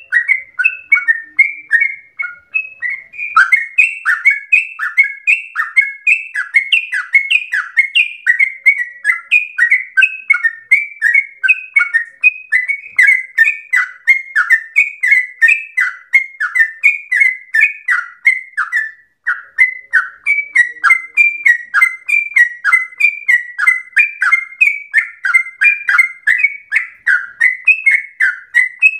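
Yellow-vented bulbul singing a long, unbroken run of quick bubbling notes, about three or four a second, with no pauses.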